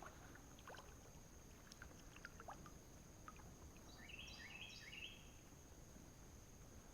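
Near silence on the water: a steady high insect drone with a few faint ticks and drips, and a quick run of about five high chirps about four seconds in.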